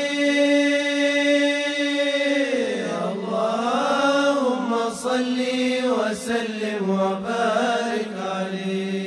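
Male voices chanting an unaccompanied Islamic devotional melody (mawlid inshad). A long held note gives way, about three seconds in, to a winding melismatic phrase.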